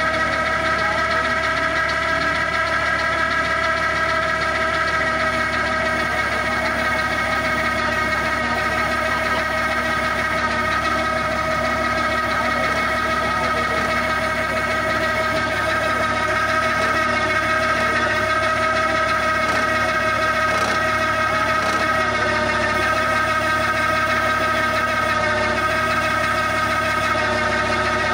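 Massey Ferguson 9500 tractor's engine running steadily, driving a tractor-mounted hydraulic auger piling machine as it bores into soil and is lifted back out, with a steady whine over the engine.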